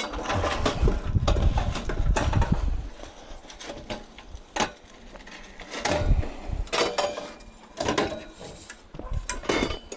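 Bent steel swing-seat frame being handled as scrap: its tubes clank and rattle, with a low handling rumble at first and then a run of separate metal knocks through the rest.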